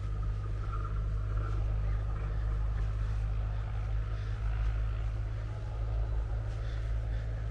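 A steady low rumble, with no distinct events.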